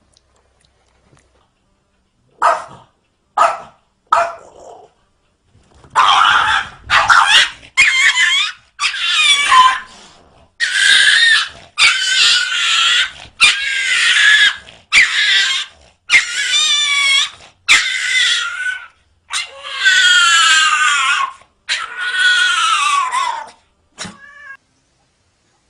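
A pet animal crying out loudly again and again: three short cries, then a long run of drawn-out, wavering wails one after another.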